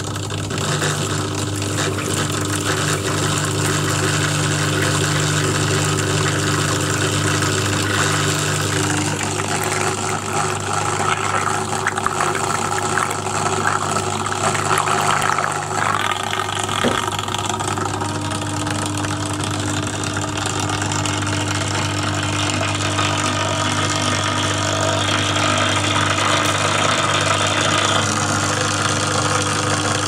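Washing-machine water pump's small electric motor running with a steady hum, pumping soapy water through a hose with water rushing and splashing. It runs normally after its broken coil winding was repaired.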